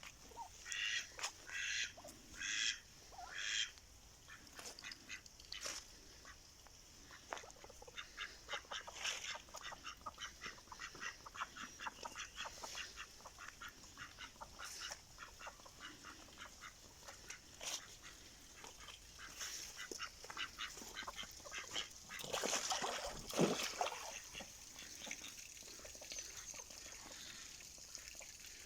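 Domestic ducks quacking: a few separate calls at the start, then a long run of quick, chattering quacks, with a louder burst of calls about three quarters of the way through.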